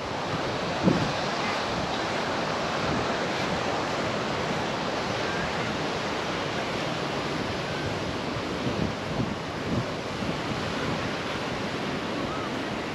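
Steady rush of ocean surf with wind buffeting the microphone, and a few brief low knocks.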